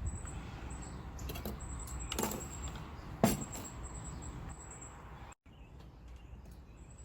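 A spoon knocking and scraping against a mixing bowl while warm water is stirred into cornstarch and jello powder, with scattered light clicks and one sharper knock about three seconds in.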